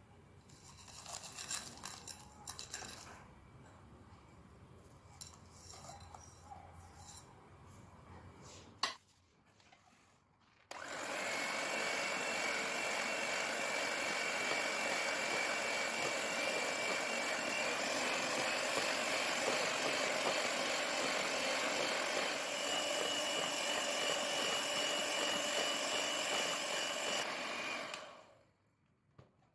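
Crushed Oreo biscuits tipped and scraped from a china bowl into a glass mixing bowl, with clinks and a sharp click. Then, about eleven seconds in, an electric hand mixer starts and runs steadily with a high whine, its beaters whipping the cream and Oreo mixture, until it cuts off near the end.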